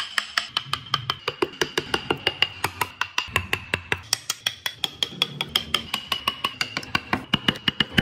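Mallet tapping a carving chisel into a wooden block: rapid, even knocks, about six a second, over a faint steady high tone.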